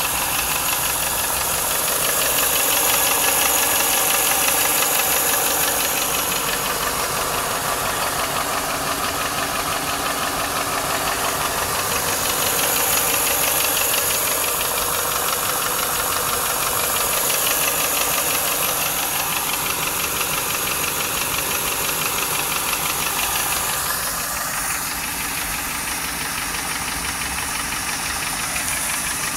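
Ford 4.6-litre DOHC V8 of a 1995 Lincoln Mark VIII running, with a fast, steady tapping or knocking in time with the engine. The owner cannot tell whether it is lash adjuster tap or piston slap or rod knock. It drops a little in level near the end.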